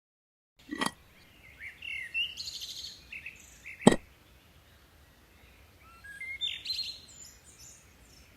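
Small birds chirping in two short runs of quick rising and falling calls, with a sharp knock about four seconds in and softer knocks near the start and end.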